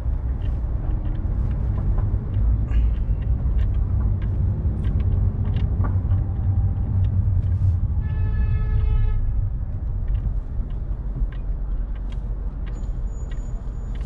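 Steady low rumble of a car driving through city traffic, with scattered light clicks. About eight seconds in, a horn sounds once for about a second.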